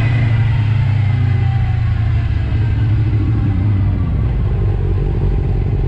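Inline-four 600cc sportbike engine running steadily at cruising speed, with wind and road noise rushing past the bike-mounted camera.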